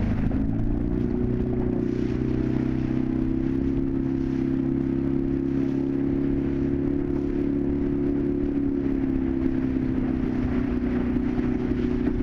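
Outboard motor of a coach boat speeding up in the first second, then running steadily at speed.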